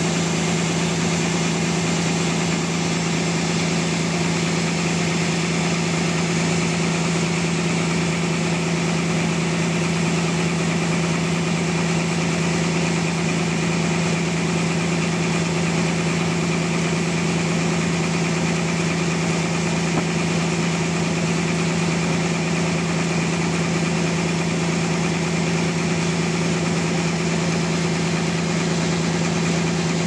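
Band sawmill running steadily, with a constant motor hum over the hiss of the blade sawing lengthwise through a large trembesi (rain tree) log.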